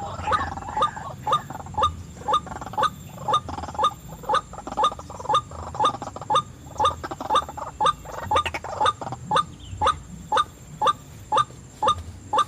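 White-breasted waterhen calling: a steady run of short, rising notes repeated about two to three times a second.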